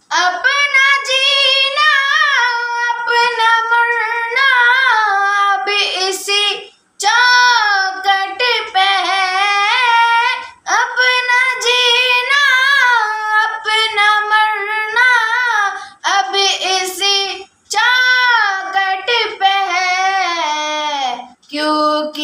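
A boy singing a naat unaccompanied, in long ornamented phrases broken by short pauses for breath, in a small room.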